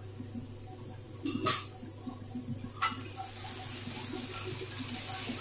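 Okra and potato pieces frying in hot mustard oil in a steel kadai. There are two metal clinks against the pan, the first and louder about a second and a half in, the second just before three seconds. After that the sizzle grows louder and steadier as the vegetables are stirred.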